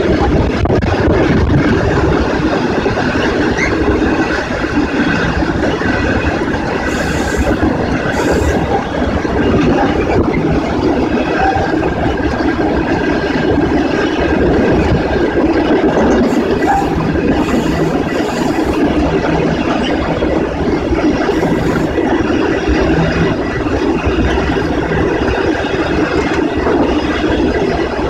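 A moving train heard from on board: a loud, steady running noise of wheels on rail that holds level throughout.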